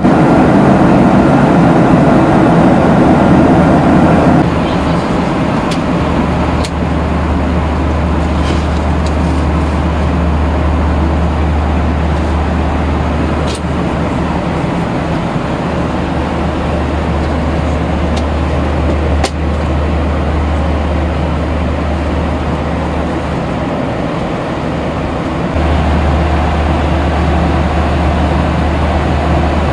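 Cabin noise inside a Boeing 737-800: the engines and air systems give a steady low rumble and hum. It is louder for the first few seconds, settles lower, and rises again near the end, with a few faint clicks along the way.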